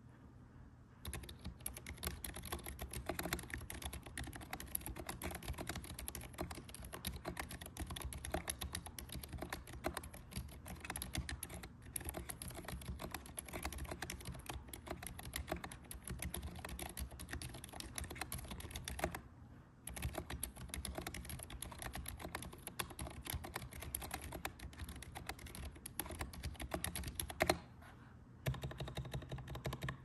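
Continuous fast typing on a mechanical keyboard with lubed ZealPC Zilent 67g silent tactile switches mounted on a brass plate: a dense, steady run of keystroke clicks. It starts about a second in and breaks off briefly twice, about two-thirds of the way in and again near the end.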